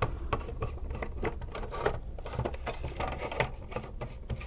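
A screwdriver backing screws out of a plastic toy tank's shell: a string of small, irregular clicks and light scrapes of metal on plastic.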